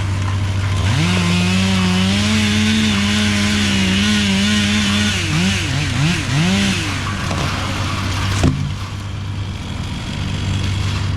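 Two-stroke chainsaw cutting through a tree, then revved up and down several times before it stops, with a single sharp knock near the end. A steady low engine drone runs underneath.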